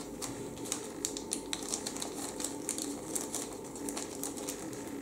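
Thin clear plastic bag crinkling in the fingers: a run of quick, irregular small crackles as the bag of clear model-kit parts is handled.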